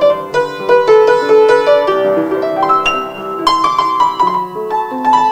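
Upright piano played live: a melody of struck notes over lower chords, at a moderate pace.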